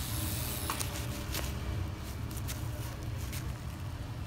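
Steady low hum of a rotary tattoo pen machine running, with a few soft clicks as the skin is wiped with a gloved finger.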